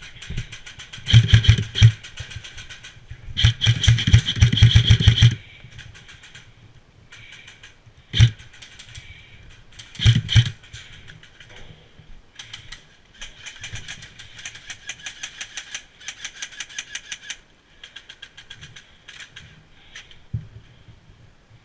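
Airsoft guns firing in rapid full-auto bursts, a fast clatter of shots, the loudest bursts in the first five seconds, then single shots and fainter bursts from further off.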